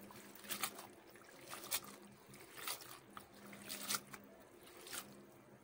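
A hand swishing and squeezing fresh miki noodles in a basin of soaking water, washing them. It gives faint, soft splashes and squelches about a second apart.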